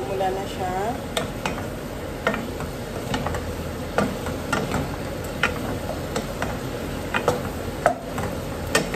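Wooden spoon stirring shrimp and tomatoes frying in a pot, irregular clicks and knocks of the spoon against the pot over a steady sizzle.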